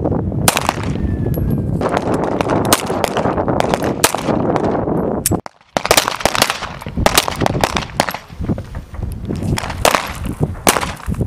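M9 (Beretta 9 mm) pistols firing many single shots at irregular intervals, from more than one shooter on the line. The sound drops out briefly about five and a half seconds in.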